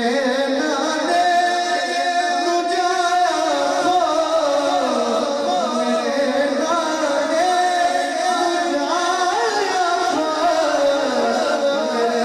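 A male voice singing a naat, a devotional praise poem, into a handheld microphone, in a continuous melodic line with long held notes.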